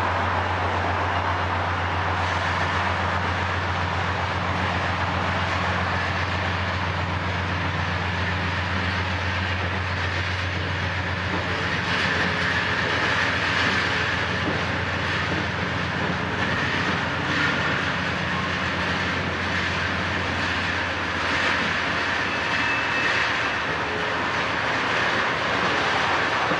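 A disabled Amtrak bilevel passenger train is towed slowly over a railway bridge by a diesel locomotive. It makes a steady low drone that fades after about the middle, with rolling noise and faint clicks of wheels over rail joints in the second half.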